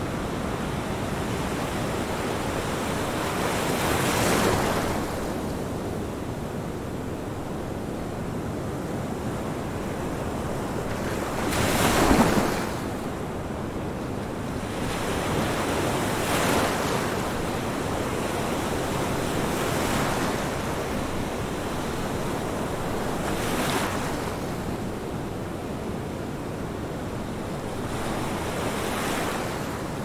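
Ocean waves washing in: a steady rush of surf that swells every few seconds, most strongly about twelve seconds in.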